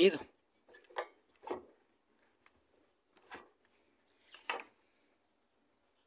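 A few short, light metallic clinks and scrapes, spread a second or two apart, from a General Electric washer's spin brake and transmission parts being turned by hand.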